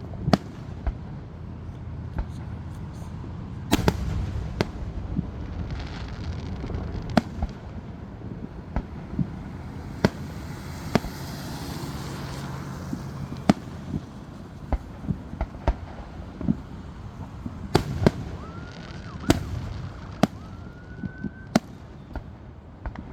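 Fireworks display: sharp bangs of bursting shells about once a second at uneven intervals, over a steady low rumble. Two short rising whistles sound near the end.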